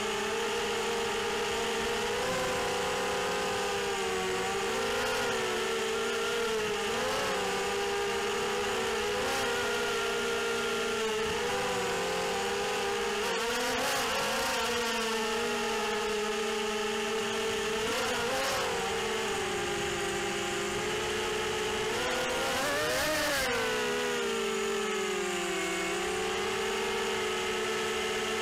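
Brushless motors and propellers of a ZMR180 racing quadcopter whining in flight, the pitch wavering up and down with the throttle, with one sharp climb and drop in pitch about three-quarters of the way through.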